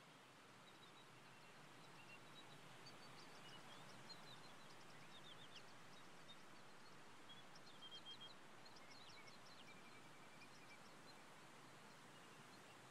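Faint birds chirping: short high notes and quick runs of rapid strokes over a soft steady hiss.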